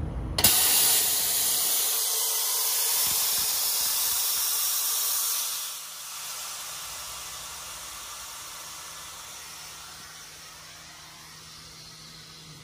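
Emergency brake application on a Sydney Trains Waratah electric train: a sudden, loud hiss of compressed air dumped from the brake system as the train-stop arm at a red signal trips the brakes. The hiss holds for about five seconds, then drops and dies away slowly.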